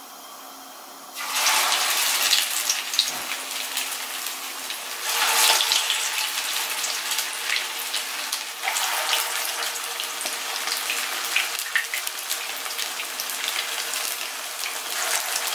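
Chicken mince kababs going one at a time into hot oil in a nonstick frying pan for shallow frying. The first goes in about a second in, and each one sets off a fresh surge of sizzling, again about four and about seven seconds later. Between surges the oil keeps up a steady sizzle.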